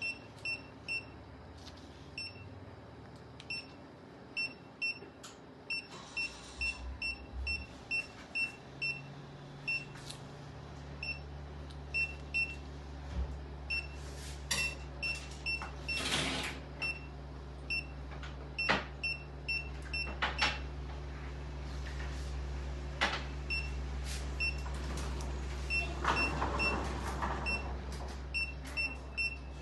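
Surgical patient monitor giving short high beeps that repeat about twice a second, in step with the cat's pulse under anaesthesia. A steady low hum comes in about nine seconds in, and a few sharp clicks sound over the beeps.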